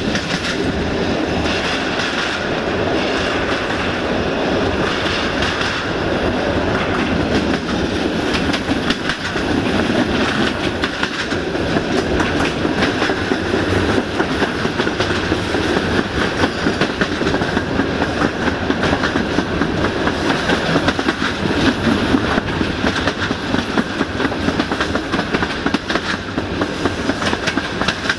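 Steel wheels of a passenger train running along the track at speed: a steady rumble with a rapid stream of clicks and clacks over the rail joints, heard from beside the moving coach.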